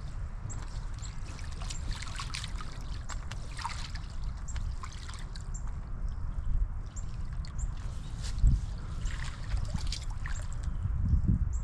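Water splashing and trickling in irregular spurts as a 15 lb blue catfish is handled in creek water for release, with the heaviest splashing a couple of seconds in and again near the end, over a steady low rumble.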